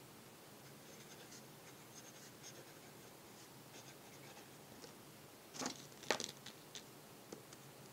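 Medium-nib Parker Sonnet fountain pen scratching faintly on notebook paper as a line of handwriting is written, with a few louder scratches about three-quarters of the way through.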